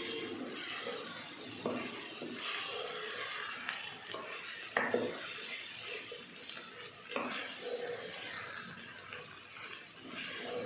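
A spoon stirring and scraping taro root pieces and spice powders through oily masala in a pan as they are sautéed, with a faint sizzle under it. The utensil knocks against the pan about six times, loudest about five seconds in.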